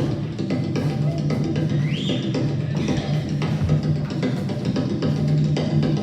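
Music with a drumbeat: frequent drum and percussion hits over a steady low bass note, with a short rising tone about two seconds in.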